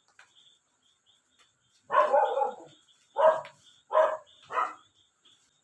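A dog barking four times, starting about two seconds in; the first bark is the longest.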